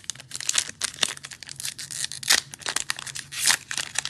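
Foil wrapper of a Panini Mosaic football-card pack being torn open and crinkled by hand: a quick, irregular string of crisp crackles and rips.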